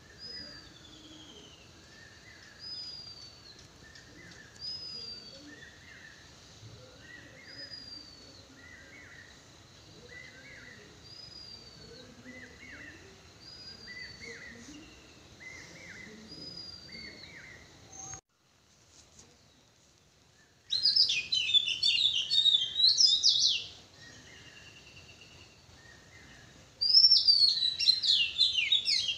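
Birds calling: a short falling whistle with a lower chirp, repeated about every two seconds. Then, after a brief silence, much louder, dense twittering and chirping comes in two bursts.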